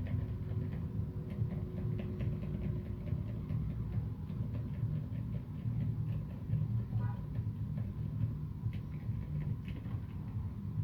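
Fast, continuous typing on a custom mechanical keyboard with Cherry Silent Black linear switches (silent, dampened) and SA-profile keycaps. The keystrokes come as dull, low thuds with only faint, light clicks above them.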